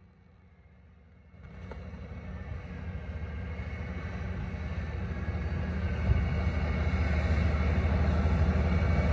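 Caterpillar motor scraper's diesel engine running as the machine works across the field, with a whining note above the low drone. It comes in about a second and a half in and grows steadily louder as the scraper approaches.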